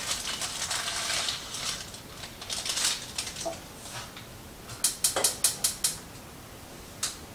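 Dry bulgur wheat pouring into a pot with a rustling hiss, then a gas stove burner's igniter clicking rapidly, about six clicks a second for a second and a half, as the burner is lit to bring the pot to a boil; one last click follows near the end.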